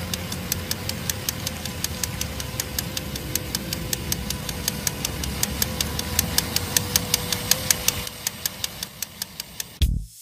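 Small battery-powered DC motor of a homemade soda-can toy train running with a steady whine, with a regular clicking several times a second as the train rolls along. Music comes in at the very end.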